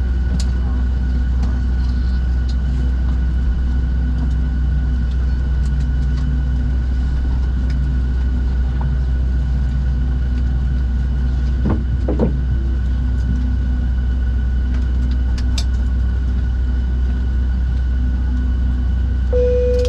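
Steady low cabin rumble inside a Boeing 737-700 on the ground after landing, with a constant high-pitched hum over it. A short rattle about twelve seconds in, and a brief single tone just before the end.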